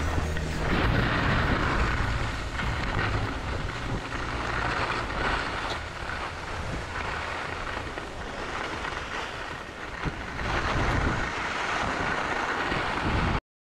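Wind rumbling over a GoPro's microphone and skis hissing across packed snow at low speed. The sound cuts off abruptly near the end.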